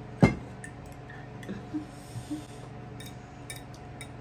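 A single loud thump just after the start, followed by a few faint clinks and clicks of tableware.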